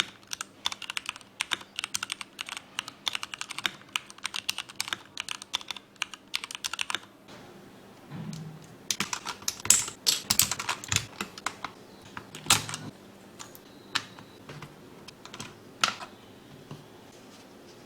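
Cherry MX8.2 mechanical keyboard being typed on: a fast, steady run of key clacks for about seven seconds, then scattered, louder clacks and knocks with pauses between them.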